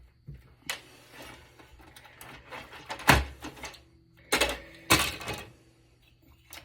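Four sharp clunks and knocks from handling a desktop PC's chassis and parts while dismantling it, the loudest about three seconds in.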